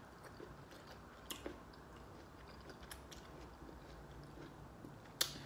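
Faint chewing of an asparagus spear, with a few soft mouth clicks and one sharper click near the end.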